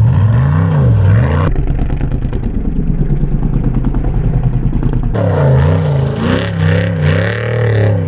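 Off-road race vehicle engines revving hard, the pitch rising and falling repeatedly with throttle and gear changes. The sound turns abruptly duller about a second and a half in and back to full brightness about five seconds in.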